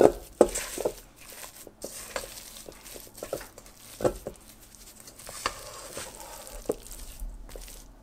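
Silicone spatula stirring and scraping thick chocolate chip cookie dough in a stainless steel mixing bowl by hand: irregular soft knocks and scrapes against the metal, a few of them ringing briefly off the bowl.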